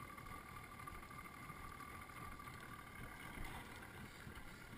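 Faint steady background noise aboard a drifting river boat, with a faint, steady high-pitched hum.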